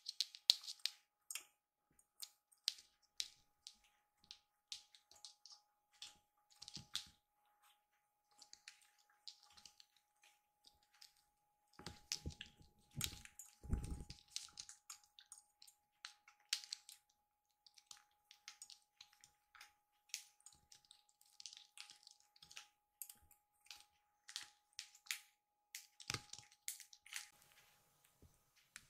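Faint scratching and clicking of kittens' claws and paws on a floor mat and a metal stool leg during play, with a cluster of soft thumps about twelve to fourteen seconds in. A faint steady hum runs underneath.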